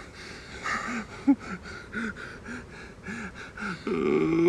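A man laughing in short, breathy pulses, about three a second, with one sharper, louder burst about a second in. Music with steady held notes comes in near the end.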